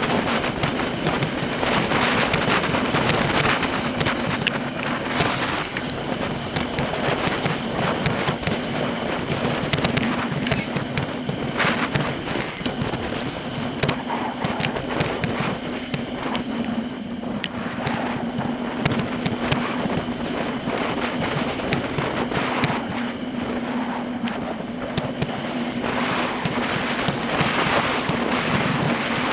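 Wind on the microphone and road rattle picked up by a handlebar-mounted action camera on a moving bicycle, sped up to four times normal speed: a dense, continuous crackling rush full of sharp clicks, over a steady low hum.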